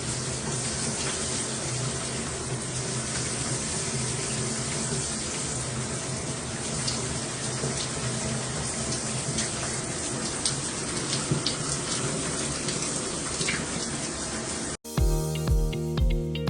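Water spraying steadily from a kaqinu shower head onto a shower floor: an even hiss of falling water with small splashes. Near the end it cuts off abruptly and music with a steady beat and plucked guitar begins.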